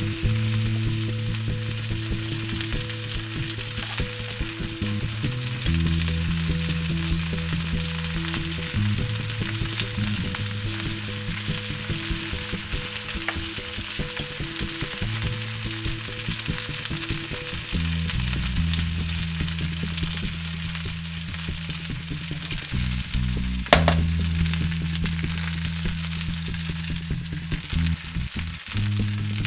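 Chive blossoms sizzling and crackling in a hot pan as they caramelize, with one sharp clink about three quarters of the way through. A low, looping synth music bed plays underneath.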